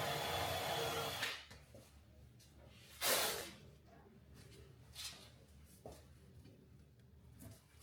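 Cordless power drill running on woodwork and stopping about a second in, then a short loud hiss about three seconds in and a few light knocks of the work being handled.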